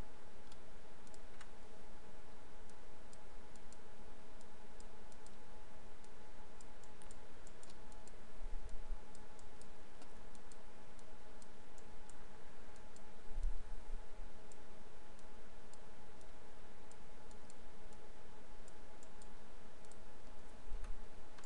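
Faint, irregular clicks of a computer mouse and keyboard over a steady hum, with a few low thumps.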